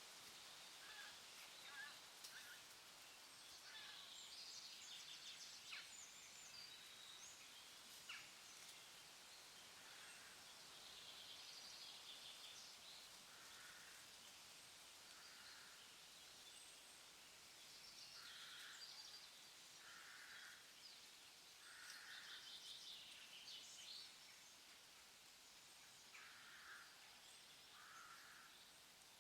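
Faint forest ambience: songbirds call on and off over a steady soft hiss. High twittering phrases come every few seconds, and in the second half a lower call repeats about once every second or two.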